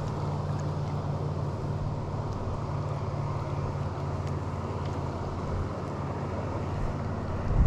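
Motorboat engine running steadily, a low even drone.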